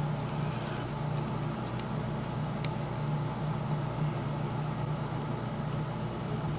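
Steady low droning hum from a room fan or air-conditioning unit, with a few faint light clicks over it.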